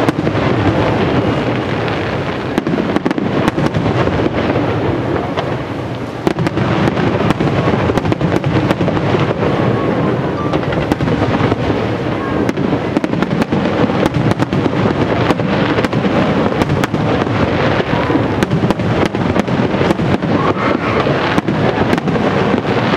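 Aerial firework shells bursting in rapid succession during a professional display, a loud, continuous barrage of booms and many sharp cracks.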